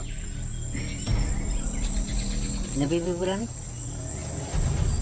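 Rainforest insects trilling in one steady high note over a low rumble. About three seconds in, a short wavering, voice-like call rises and falls.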